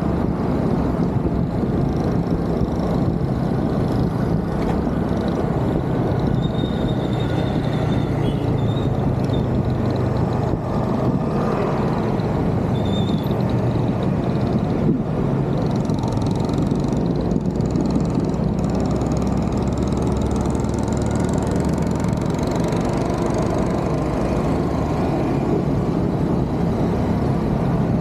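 Honda scooter riding along a busy city street, its small engine running steadily under a constant rush of road noise and the surrounding motorbike and car traffic.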